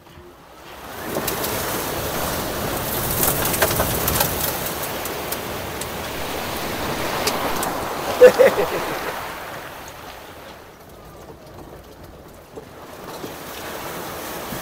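River water splashing and rushing as a Tesla-electric Land Rover Defender ploughs through a deep ford at speed, throwing up a bow wave; no engine note. A brief loud pitched sound about eight seconds in stands out above the splashing.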